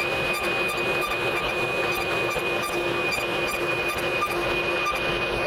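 Table saw running steadily, a constant whine over its motor and blade noise.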